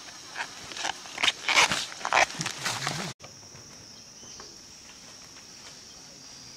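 Steady high-pitched drone of forest insects. For about the first three seconds it is overlaid by a run of loud, sharp, short noises, which stop abruptly at a cut.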